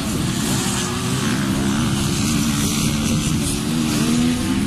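Several enduro dirt bike engines running together at a race start, each at its own pitch, rising and falling as the riders work the throttles.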